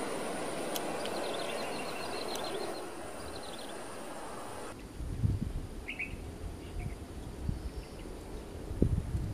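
Distant airliner jet engines rumbling steadily across the airfield, with small birds chirping. About halfway through it cuts to wind buffeting the microphone in low gusts, the strongest near the end, with a few more bird chirps.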